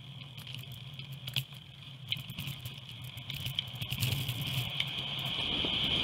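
Bicycle ride heard through a GoPro mounted on the bike, played at double speed: scattered clicks and rattles over a steady high-pitched hum and a low rumble. Wind and road noise build so it grows steadily louder over the second half.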